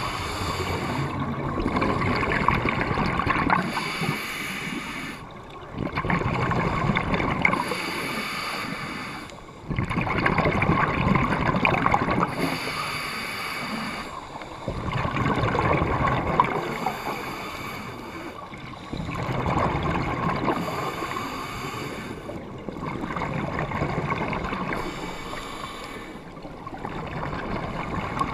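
Scuba diver breathing through a regulator underwater: rhythmic exhalation bubbles gurgling and rushing past the mouthpiece in swells about every three to four seconds, each with a short hiss between them.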